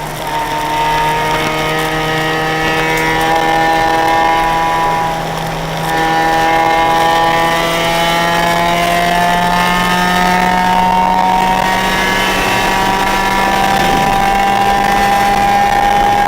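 Car engine heard from inside the cabin on a race track lap, its revs climbing slowly under load. About six seconds in the revs drop, as at a gear change or lift, then climb slowly again over a steady low drone.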